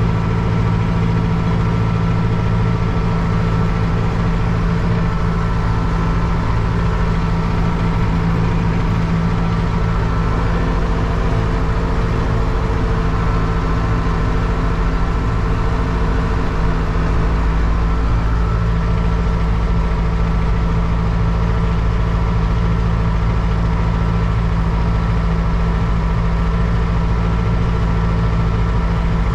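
Zetor 7341 Super Turbo tractor's turbocharged diesel engine running steadily under the load of a two-furrow plough.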